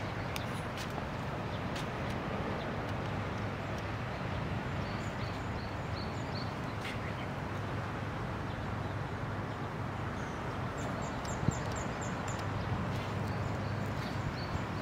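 Birds calling in a few short runs of quick, repeated high notes over a steady outdoor background hiss.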